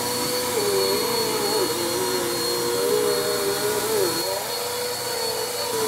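Bissell PowerForce Compact upright vacuum cleaner running steadily over a rug, its motor tone wavering up and down in pitch. The owner thinks the sound means a clog somewhere in the vacuum.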